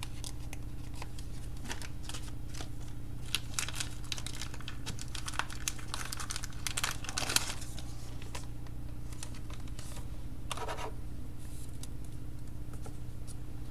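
Crinkling and rustling of packaging as it is handled, a run of small crackles and clicks that thins out after about eight seconds, over a steady low electrical hum.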